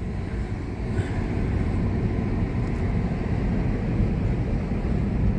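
Steady road noise heard inside a moving car's cabin: a low, even rumble of tyres and engine.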